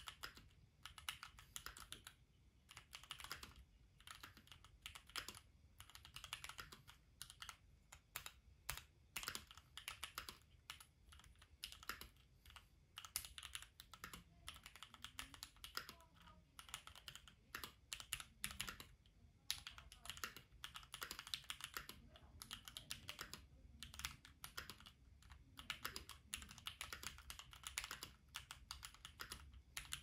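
Typing on a Keychron Q1 mechanical keyboard with lubed Gateron Milky Yellow linear switches, a stock steel plate and stock ABS keycaps, plate foam removed for a clacky sound: quick runs of keystrokes broken by short pauses.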